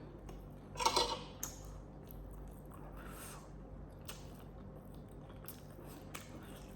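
Close-up eating sounds: wet chewing and mouth smacks with scattered faint clicks while eating chicken pasta, and one louder mouth sound about a second in.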